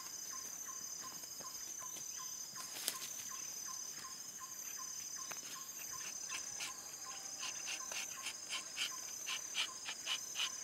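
Tropical forest insects shrilling steadily at a high pitch, with a faint regular tick about twice a second. From about halfway through, a louder series of short chirps comes in at about two to three a second.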